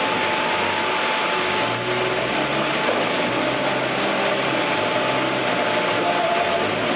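Chainsaw running steadily under load, its chain cutting lengthwise through a log in a milling rig.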